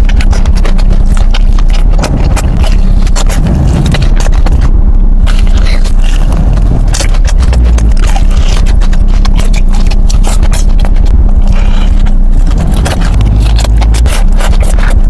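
Close-miked eating of crispy fried hot chicken: rapid, irregular crunching and wet chewing clicks over a steady low hum.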